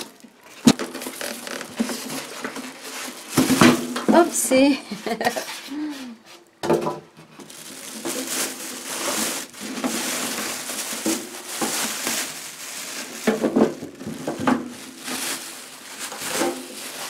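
Clear plastic wrapping crinkling and rustling as it is pulled off a small toaster oven, with knocks and clatter as the oven is handled, the sharpest just under a second in.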